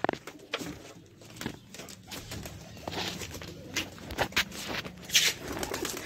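Domestic pigeons cooing softly in their loft, with scattered knocks and rustles over it.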